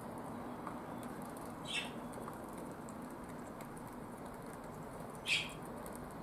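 Two short, high-pitched squeaks about three and a half seconds apart, the second louder, over a steady background hiss: the peeping of a young feral pigeon.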